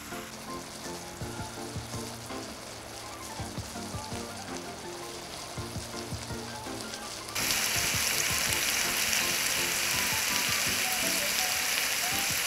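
Meat sizzling in a skillet: a softer sizzle with scattered pops at first. Just past halfway it jumps suddenly to a loud, steady sizzle.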